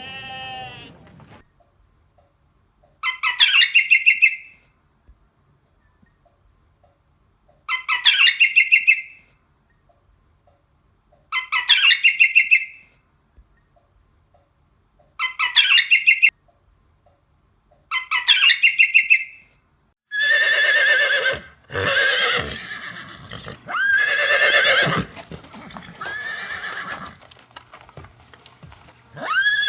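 Horse whinnying: five high, quavering neighs of just over a second each, about four seconds apart. From about two-thirds of the way through comes a run of coarser, lower calls close together.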